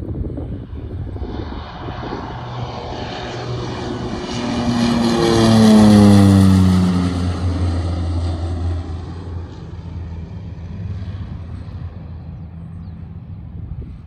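Beechcraft Super King Air B200's twin Pratt & Whitney PT6A turboprops at takeoff power as it climbs out. The sound grows louder, passes overhead about six seconds in with its pitch dropping, then fades as the aircraft climbs away.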